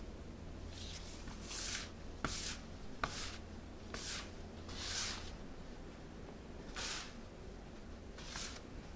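Dough scraper sweeping and cutting through crumbly corn scone dough on a countertop, about seven short scratchy strokes at irregular intervals. This is the cold cream sauce being worked into the dry crumbs to bring the dough together.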